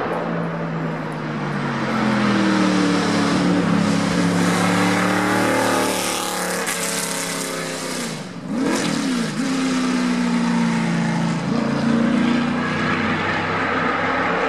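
Racing car engine at speed: its note falls steadily, breaks off sharply about eight seconds in, then climbs again as the car accelerates away.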